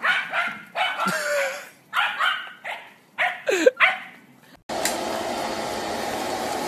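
Dogs barking and yipping in a quick run of short calls for about four and a half seconds. Then a robot vacuum cleaner's steady motor whir starts suddenly and runs on.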